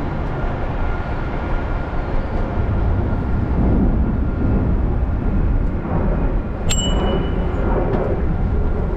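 A 2004 Cannondale F400 mountain bike being ridden along a path, its tyres making a steady rumbling noise, with a brief high ping about two-thirds of the way in.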